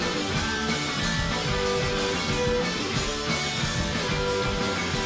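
Live rock band playing an instrumental passage: electric guitars repeat a riff about every two seconds over a drum kit keeping a steady beat on the cymbals.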